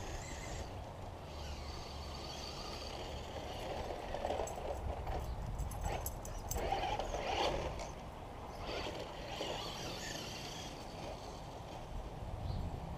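Traxxas radio-controlled car driving around on grass, its motor whining up and down as it speeds and turns. It is loudest as it passes close by around the middle.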